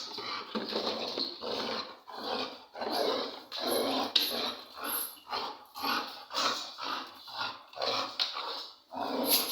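A dog vocalising in a rapid run of short, noisy bursts, growling and whining.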